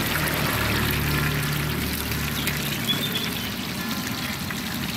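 Batagor (fish-paste and tofu dumplings) sizzling as they deep-fry in a wok of hot oil, a steady bubbling hiss. A low hum runs underneath for the first two or three seconds.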